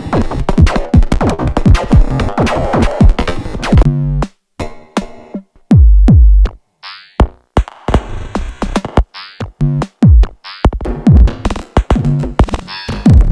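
Electronic music from a Eurorack modular synthesizer: a drum-machine beat with synth notes. About four seconds in the beat drops out, leaving sparse synth notes, a deep falling bass hit and short high glides. The full beat returns near the end.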